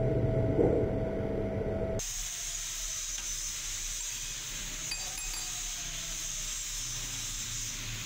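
Manual metal lathe running while turning a brass bush: a steady machine hum that changes abruptly about two seconds in to a quieter, steady hiss.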